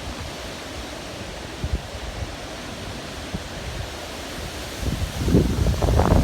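Tropical-storm wind blowing steadily, then a strong gust rising about five seconds in, buffeting the microphone with a heavy low rumble.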